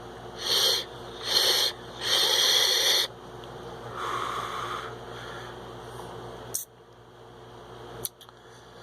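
Three short hissing draws through a sub-ohm vape tank with a 0.3 ohm coil fired at 45 watts, the last about a second long, then a softer breathy sound, and a sharp click near the end.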